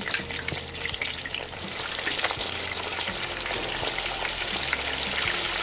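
Hot oil in an electric deep fryer crackling and sizzling hard as cornstarch-coated Dungeness crab pieces deep-fry. The crackle builds over the first two seconds.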